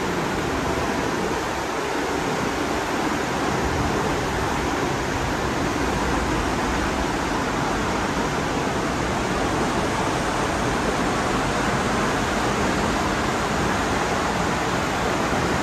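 Steady rushing noise of wind and sea along the open deck of a moving cruise ship, with some uneven low rumble in the first few seconds.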